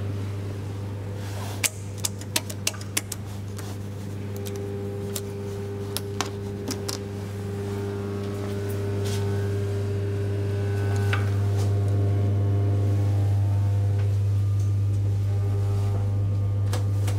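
Steady electrical hum in an elevator car and its machinery, with a few higher steady tones over it, growing louder about ten seconds in. A quick run of sharp clicks comes about two seconds in, and a few more a few seconds later.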